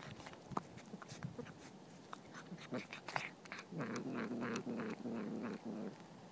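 Domestic cat chewing a rat, with quick wet clicks and crunches as it bites through the carcass. About four seconds in, a low, drawn-out vocal sound from the cat lasts roughly two seconds.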